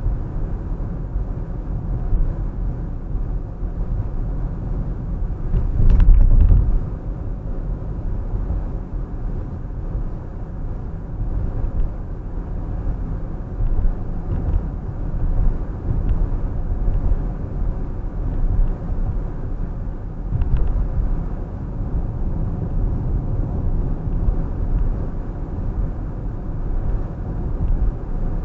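A car driving along: a steady low rumble of road and engine noise. There is a louder thump with a click about six seconds in and a faint click later on.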